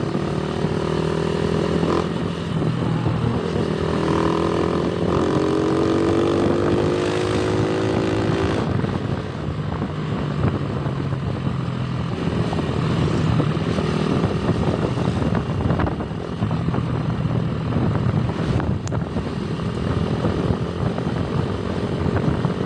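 Motorcycle engine running while ridden, its pitch drifting with the throttle, with wind noise on a helmet-mounted phone microphone that grows heavier from about nine seconds in.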